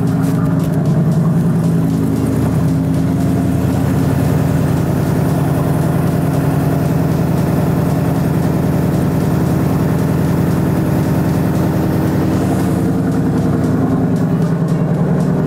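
Ford Boss 302's 5.0-litre Road Runner V8 idling steadily at its raised cold idle, shortly after a cold start, with fresh oil just put in.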